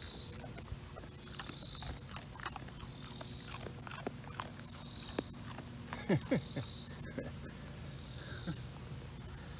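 An insect calling in regular high-pitched pulses, about one every one and a half to two seconds, over small rustles and clicks from a dog sniffing through grass. A brief louder falling sound comes about six seconds in.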